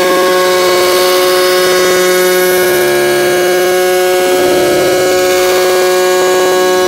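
A loud, sustained drone of many steady tones layered together, with a fast shimmering pulse running through it. Lower tones briefly swell and waver about three seconds in and again near five seconds.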